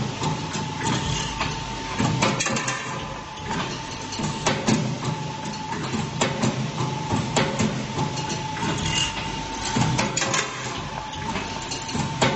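Flat bar hooping (bending) machine running: a steady low hum with irregular metal clicks and knocks, and a high whine that cuts in and out every few seconds.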